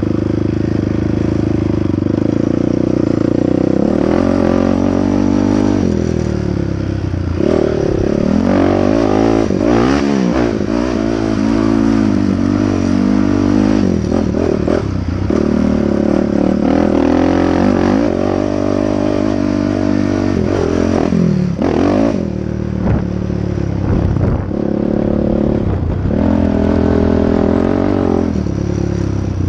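Honda TRX450R quad's single-cylinder four-stroke engine being ridden hard, its pitch rising and falling again and again with the throttle, with brief drops as the throttle is rolled off.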